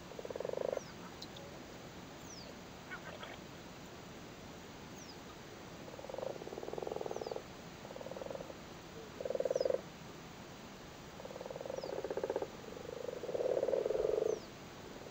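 Male common frogs calling at spawning time: six bouts of low, rapidly pulsed croaks, each lasting half a second to a second and a half. There is a quiet spell of about five seconds after the first bout, and the calls come closer together towards the end.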